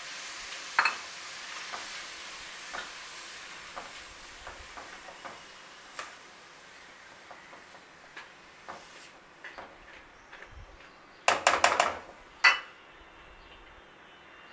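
Chopped onions, green chillies and garlic sizzling in oil in a kadai while a silicone spatula stirs them, with light scattered clicks; they are being sautéed until the onions' water cooks off. The sizzle fades, and near the end comes a quick run of loud spatula knocks against the pan, then one more knock.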